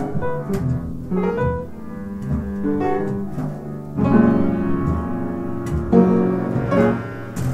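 Free jazz improvisation on piano and upright bass, with shifting notes and chords and no steady beat. The music swells louder about four seconds in and again near six seconds.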